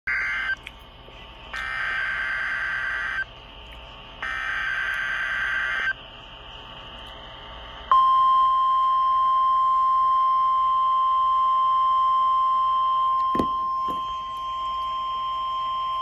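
NOAA Weather Radio required weekly test through a Motorola two-way radio's small speaker: the end of one screechy SAME digital header burst, then two more about a second apart, each under two seconds long. About halfway through, the steady single-pitch warning alarm tone comes on, with a brief knock partway through it.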